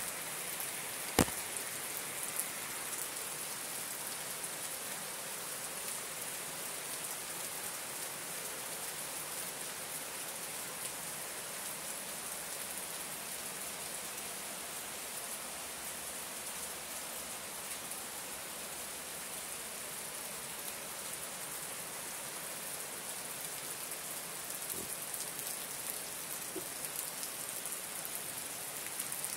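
Steady rain falling on trees and a tiled roof, with water dripping from the eaves. One sharp click about a second in.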